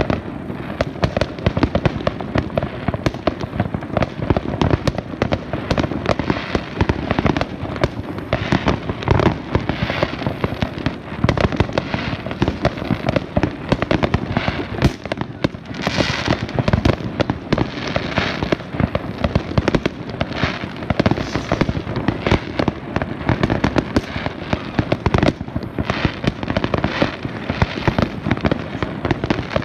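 Fireworks display: a continuous, dense barrage of bangs and crackling from shells bursting in the sky, with a louder hissing crackle around the middle.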